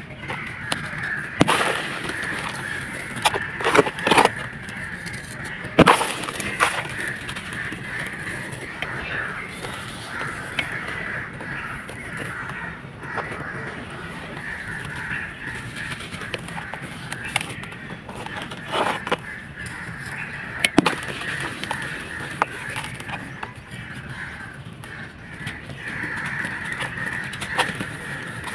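Dry sand-cement balls crumbled in a tub: sharp crunches and gritty crackling, with the loudest breaks about 4 and 6 seconds in and again around 19 and 21 seconds.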